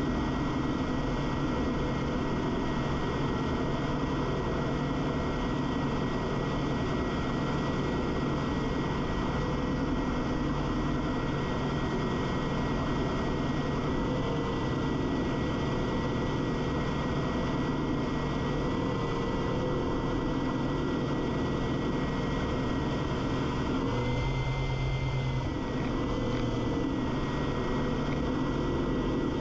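Quicksilver MX2 ultralight's engine and propeller running steadily in flight, a continuous drone. About 24 seconds in the pitch rises briefly, then settles back a couple of seconds later.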